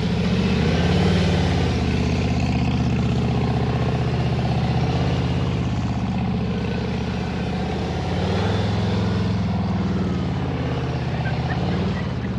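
Harley-Davidson V-twin motorcycle engine running at low speed through slow maneuvers, a steady low pulsing note. The revs rise slightly about a second in and again around eight seconds in.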